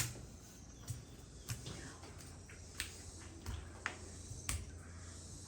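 Faint, irregularly spaced sharp clicks and taps, about seven of them, over a low steady hum.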